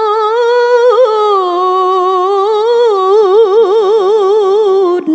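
A woman reciting the Quran in the melodic competition (mujawwad) style, holding one long drawn-out note that dips lower about a second and a half in. From about three seconds in she ornaments it with a quick wavering trill of about five wobbles a second, and the phrase breaks off near the end.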